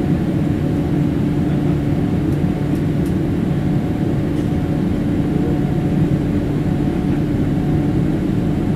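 Inside the cabin of a Boeing 787-8 climbing after takeoff, next to its Rolls-Royce Trent 1000 engine: a steady loud rush of engine and airflow noise with a couple of steady hums in it.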